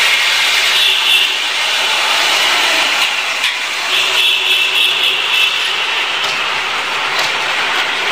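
Food frying in hot oil in a steel kadhai over a gas burner, with a steady sizzle and a few faint knocks.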